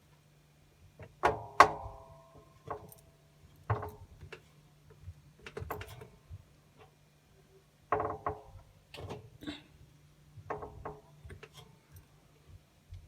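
LG front-loading washing machine drum being pushed in by hand, giving a series of uneven clunks, each with a brief metallic ring. The owner puts the noise down to the drum itself rather than the suspension springs, though the machine works fine.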